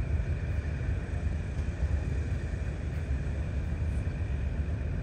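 Steady low outdoor rumble with a faint, steady high-pitched whine over it.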